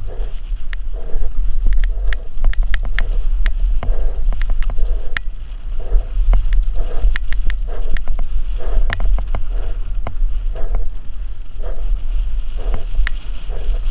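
Downhill mountain bike ridden fast down a rough dirt singletrack: a steady wind rumble on the microphone, with frequent sharp clicks and rattles from the bike over the ground.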